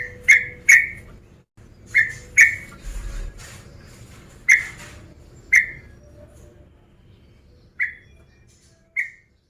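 Yellow-vented bulbul (trucukan) giving short, sharp call notes in irregular runs: three quick notes at the start, a pair about two seconds in, then single notes spaced further apart and growing fainter. These are the calls of a male bulbul challenging rivals.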